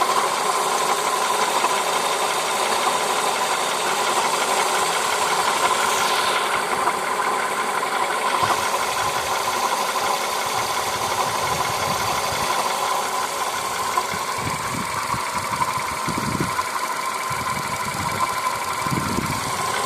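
A 2011 VW Polo sedan's 1.6-litre CFNA petrol engine idling steadily with a foreign noise from the engine, something running unevenly; the uploader found the cause to be the failing original water pump, not the belt tensioner pulley first suspected. A few low rumbles come in the second half.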